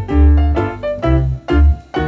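Background music: a piano-like keyboard tune over a bouncing bass line, with a new note struck roughly every half second.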